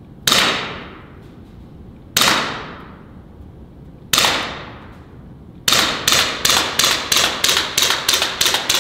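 Glock replica air pistol firing: three single shots about two seconds apart, then a rapid string of about a dozen shots, roughly four a second, from about halfway in. Each shot is a sharp crack with an echoing tail, and its blowback slide cycles with every shot.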